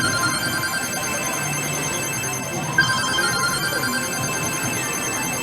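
Pachislot machine's electronic effect sound: a warbling, bell-like ringing trill that sounds at the start and again about three seconds in, over steady high electronic tones.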